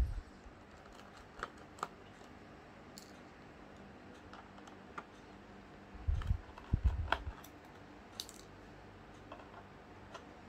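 Scattered small clicks and taps of hands and small tools working on a 13-inch MacBook Pro during disassembly, with a few louder dull knocks about six to seven seconds in.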